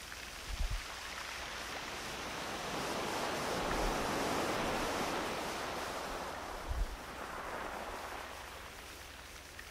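Ocean surf washing in: a broad rush that swells to a peak partway through and then fades away. A few low thumps come through, about three seconds apart.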